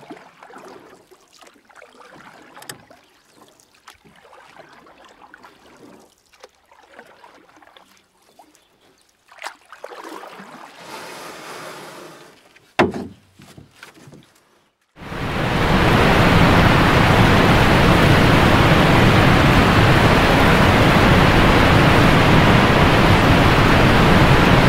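Whitewater river rapids: a loud, steady rush of churning water that starts suddenly about fifteen seconds in, after a stretch of faint, mixed quiet sounds.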